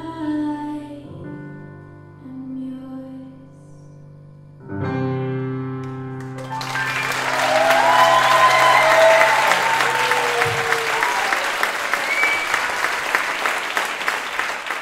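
A woman's voice sings the last phrase over a grand piano, and a final piano chord is struck about five seconds in and left to ring. From about six and a half seconds an audience applauds, with some cheering.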